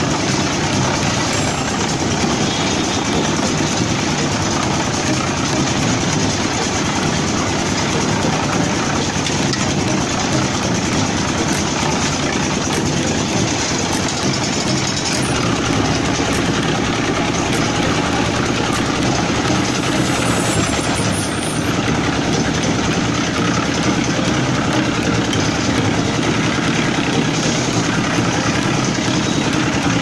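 Engine-driven drum concrete mixer running steadily as it mixes a batch of concrete.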